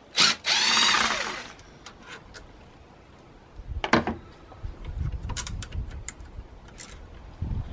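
A cordless DeWalt power tool runs for about a second, its pitch sweeping, as it spins out an alternator mounting bolt. About four seconds in comes one sharp click, then low rumbling handling noise.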